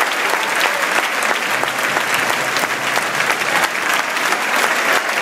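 Large stadium crowd applauding steadily, many hands clapping at once.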